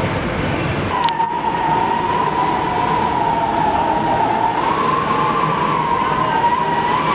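Storm wind whistling and rushing across a ship's open deck: a loud, steady rush with a high whistling tone that wavers slightly in pitch, louder from about a second in.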